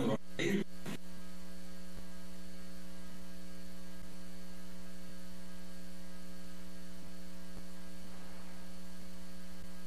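Steady electrical hum with several overtones, left where the voice on the recording has dropped out: a sign of a fault in the recording.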